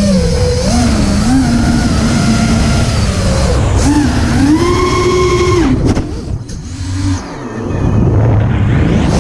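FPV racing quadcopter's brushless motors whining, their pitch rising and falling with the throttle over rushing wind noise. About two-thirds of the way through the whine climbs and holds high, then drops away and the sound thins out briefly before the motors spool back up.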